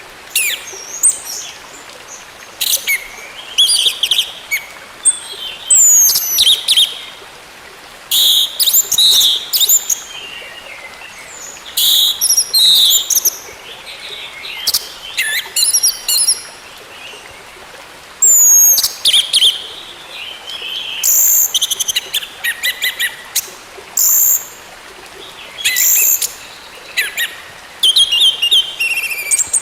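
Orange-headed thrush singing: loud, varied phrases of high whistles and trills, some with downward-sliding notes, each lasting about a second, with short pauses between them.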